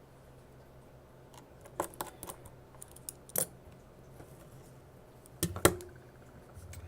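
Small metal tools clicking and tapping against iPhone 6 internal parts during reassembly: a few scattered sharp ticks, the loudest pair about five and a half seconds in.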